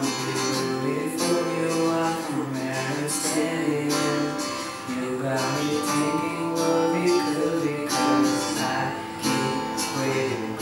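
Acoustic guitar strummed in a steady rhythm, the accompaniment to a pop song cover.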